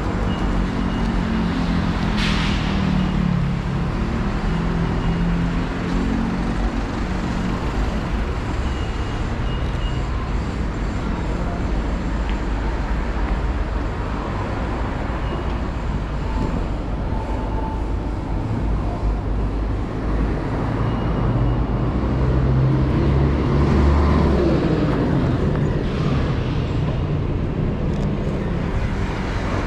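Street traffic: motor vehicle engines running and passing, with a heavier engine passing close a little past the three-quarter mark. A brief sharp sound about two seconds in.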